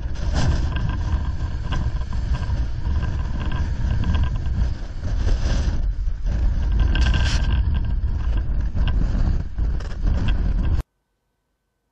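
Wind buffeting the microphone with a deep rumble, over surf washing and breaking among shoreline rocks. It cuts off abruptly about eleven seconds in, leaving near silence.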